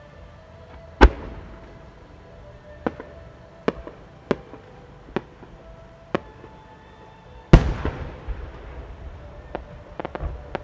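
A 12-inch Japanese fireworks shell with rising split-fire pieces: a sharp launch bang about a second in, then five smaller cracks spread over the next few seconds as the pieces burst on the way up. About seven and a half seconds in comes the loudest bang, the main shell bursting, with a long fading echo, and a few faint crackles follow near the end.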